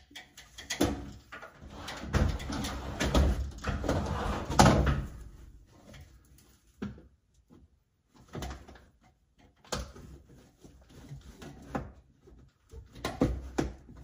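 Irregular knocks, clunks and rustling from handling a clothes dryer and its disconnected vent duct. The noise is busiest in the first few seconds, then comes as a few separate knocks.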